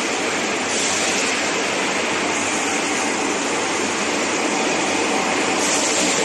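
Glass lid cleaning machine running: a loud, steady mechanical noise with an even hiss, with no breaks or knocks.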